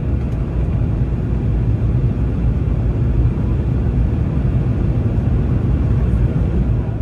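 Steady low rumble inside the cabin of a Boeing 717 climbing after takeoff: the noise of its two rear-mounted Rolls-Royce BR715 turbofans mixed with airflow over the fuselage.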